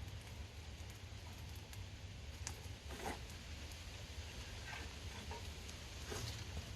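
Wind buffeting the microphone with a steady low rumble, and scattered pops and crackles from a bonfire, the clearest about two and a half, three and six seconds in.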